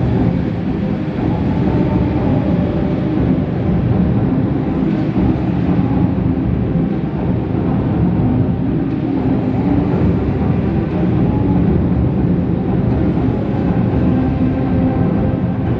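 Steady, loud rumbling noise with no clear rhythm or breaks.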